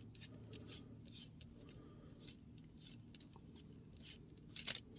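Faint, scattered small clicks and light scraping of a screwdriver working at a screw in an aluminium drop-in quad rail section.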